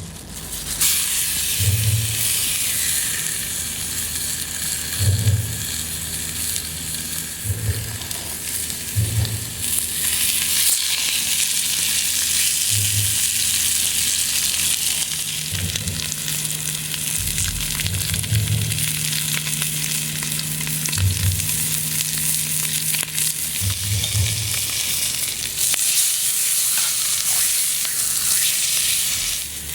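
Beef searing in a small cast-iron skillet over a campfire: a steady, loud sizzle, with short low thuds every few seconds.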